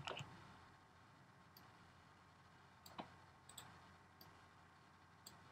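A few faint clicks from computer mouse and keyboard use over near-silent room tone, the clearest about three seconds in.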